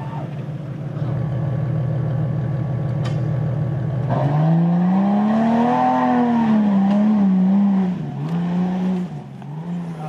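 Off-road 4x4 engine running steadily, then revving up about four seconds in. Its pitch rises, then wavers up and down as the throttle is worked, and it eases off near the end.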